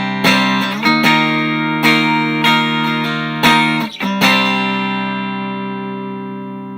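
Electric guitar played through an amplifier: a run of strummed chords, roughly two a second, with the last chord, about four seconds in, left to ring and slowly fade.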